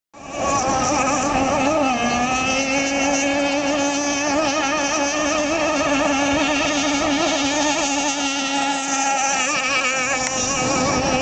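Gas RC hydroplane's Zenoah two-stroke engine running flat out, a steady high buzzing note. Its pitch dips slightly about two seconds in and then wavers a little as the boat runs.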